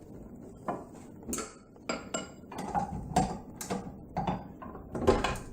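Metal clinks and knocks from a dough hook being fitted onto a stand mixer: a string of sharp, irregular knocks, some ringing briefly.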